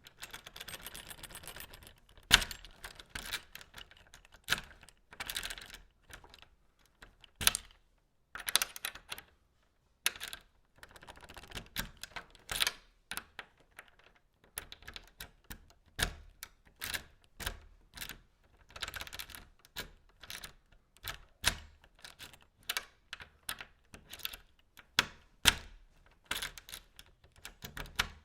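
A key being put into a lock and turned, over and over: scraping as it slides in, then sharp clicks from the lock, the loudest about two seconds in.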